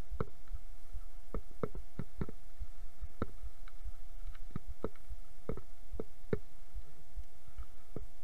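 Mountain bike clattering down a rough dirt trail: irregular sharp knocks and rattles from the bike jolting over roots and stones, over a steady low rumble, with a faint steady whine underneath.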